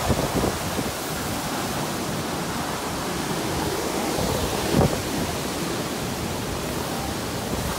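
Derecho wind and driving rain: a steady, dense rush of storm noise, with gusts buffeting the microphone. The strongest gust comes about five seconds in.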